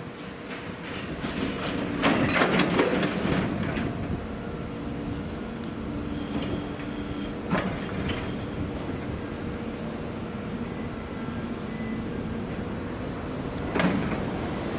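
Freight train rolling on the rails with a steady running noise. There are metallic squeals and clanks from the wheels and couplings about two seconds in, again near eight seconds and once near the end.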